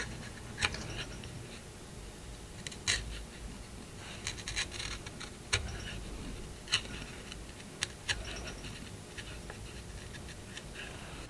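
Hand chisel paring the mitered return of a dovetailed box-lid corner against a 45-degree paring jig: short, sharp slicing scrapes of the blade through the wood, a second or two apart.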